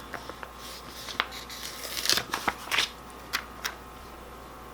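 Paper being handled: dry rustles of planner pages and sticker sheets with a few small taps, busiest about two seconds in.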